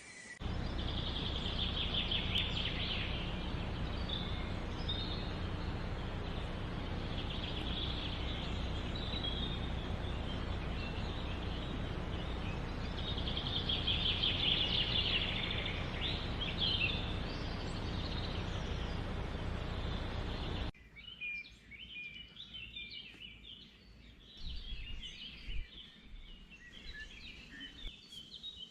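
Gulls calling in short bursts over a steady noisy background with a low hum. About two-thirds of the way through the background cuts off abruptly, leaving many short, quick bird calls over a quieter backdrop.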